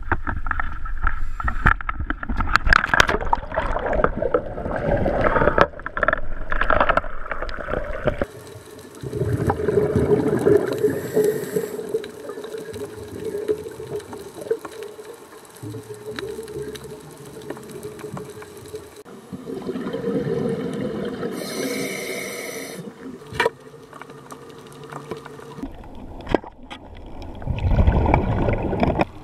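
Scuba-dive water sound: loud rough water and handling noise at first, then muffled underwater sound with a steady low hum, and a loud gush of a diver's exhaled regulator bubbles near the end.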